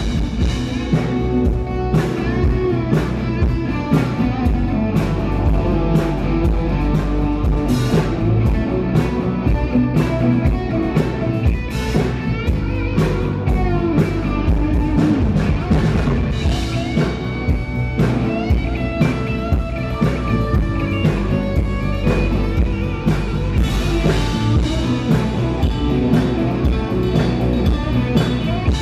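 Rock band playing: electric guitar over a steady drum beat.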